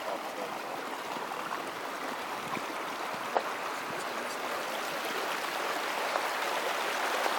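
Running water with a steady rushing hiss that grows slowly louder, and one sharp click partway through.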